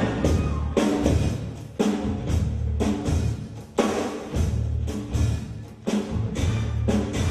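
Live band music driven by a heavy drum beat, with loud repeated drum hits over deep bass.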